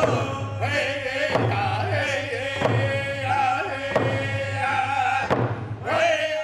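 An Indigenous honor drum song: a man singing over an even drum beat, about one stroke every second and a third. The song drops away suddenly near the end.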